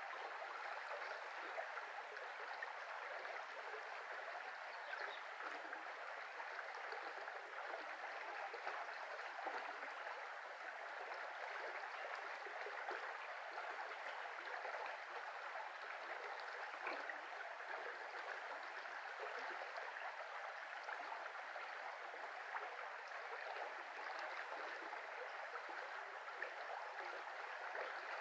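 Shallow brook flowing steadily, an even rush of running water.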